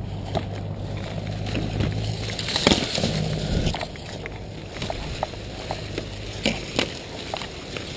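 Footsteps along a dirt path through tall dry grass, with the grass brushing and rustling against legs, clothing and the camera, and scattered light clicks and taps. The rustling is loudest about three seconds in.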